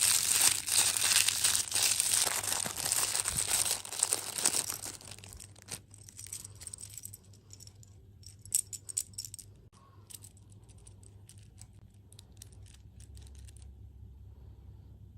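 Plastic food packaging crinkling and rustling for about five seconds, then scattered light clicks and taps that thin out, leaving a faint low hum.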